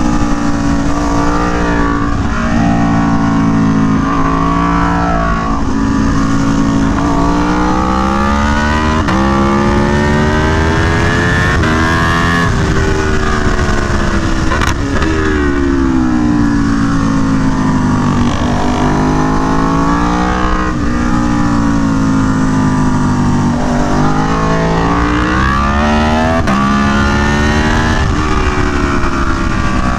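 Aprilia Tuono V4 1100 Factory's V4 engine through an SC Project CR-T exhaust, heard onboard at track speed. Its pitch climbs and falls again and again as the bike accelerates hard and slows for corners.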